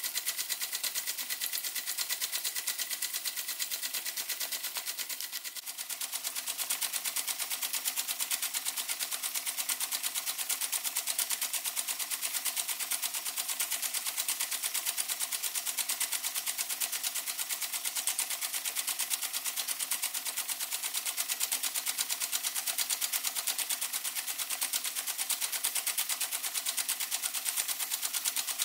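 Weeden No. 14 toy steam engine running steadily under steam, its exhaust beating in a rapid, even rhythm that dips briefly about five seconds in.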